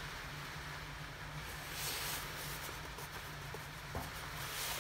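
Quiet workshop room tone: a steady low hum and hiss, with faint rustles of hands handling small carburettor parts on a cloth-covered bench and a light click about four seconds in.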